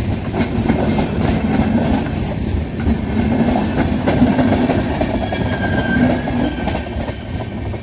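Indian Railways express coaches rolling past close by: a steady rumble with rapid clicking and clattering of the wheels over the rail joints. The sound eases off near the end as the tail of the train goes by.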